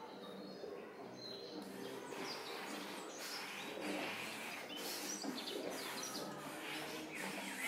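Small birds chirping in many short, high calls over a low background murmur.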